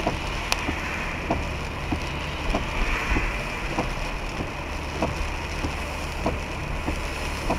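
Heavy rain striking a moving car, heard from inside the cabin: a steady hiss of rain and tyres on the wet road over a low engine hum, with many small scattered ticks of drops hitting the roof and windshield.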